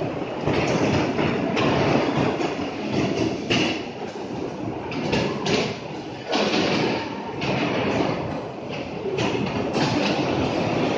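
Electric ground-grid bumper cars running on their metal floor: a steady rolling rumble, with several sudden knocks from the cars.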